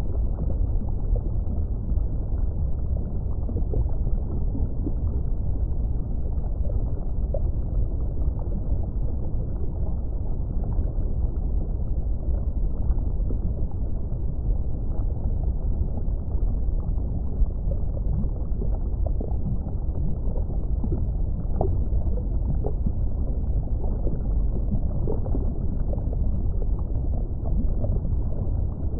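Underwater ambience of an aquarium tank: a steady, low, muffled rumble of water with faint scattered bubbling pops.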